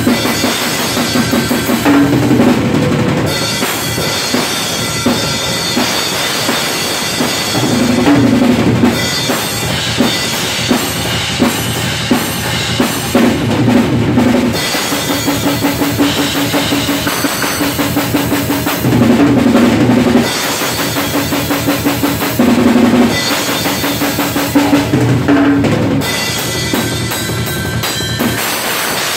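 Full acoustic drum kit played hard: dense kick and snare strokes under a constant wash of crash and ride cymbals, with tom fills coming back every few seconds.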